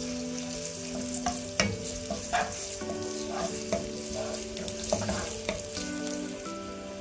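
Chopped onions sizzling in hot oil in a non-stick wok, stirred with a wooden spatula that scrapes and knocks against the pan several times.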